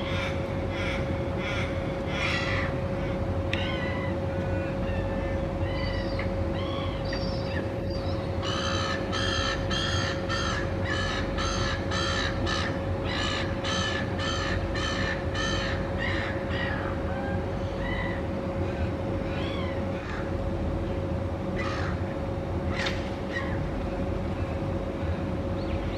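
Little ravens cawing: scattered harsh calls, then a long run of evenly spaced caws at about two a second partway through. A steady hum and low rumble run underneath.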